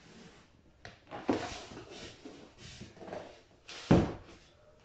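Cardboard box and its packing being opened and handled by hand: a sharp click about a second in, short scraping and rustling noises, and a dull thump near the end.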